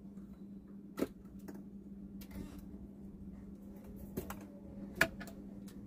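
Light clicks and taps from handling kitchen items, four or five in all, the sharpest about five seconds in, over a steady low hum.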